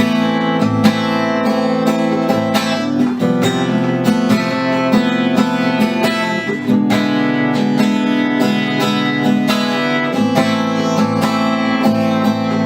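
Acoustic guitar strummed in a steady rhythm: an instrumental break between sung sections of a singer-songwriter's song.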